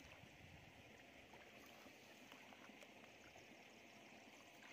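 Near silence: a faint steady hiss with a few soft ticks and sloshes of hands moving in shallow muddy paddy water.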